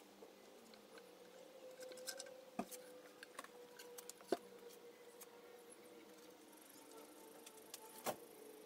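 Faint handling noises: a few scattered clicks and light knocks as a small wooden wagon box and its plastic pull handle are moved about on a bench, the loudest a little past four seconds in and another near the end, over a faint steady hum.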